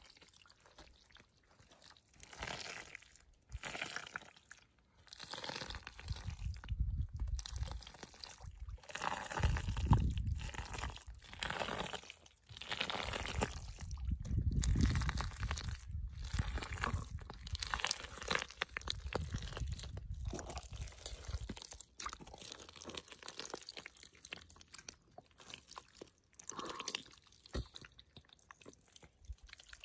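Hands digging through wet mud and breaking cracked, dried mud crust: an irregular run of crunching and squelching.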